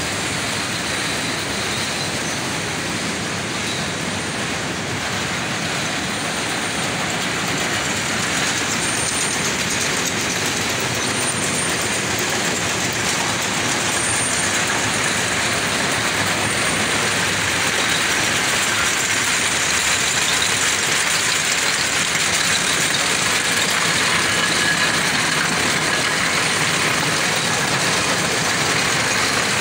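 Jute mill processing machinery running steadily: a continuous mechanical din of rollers and drives, growing somewhat louder through the second half.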